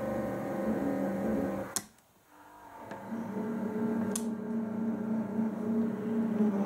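Small electric motors and gearing of a 2mm-scale model shunting tractor whining as it runs. The whine cuts out with a sharp click about two seconds in, starts again half a second later and builds to a steady pitch, with another click a couple of seconds after that.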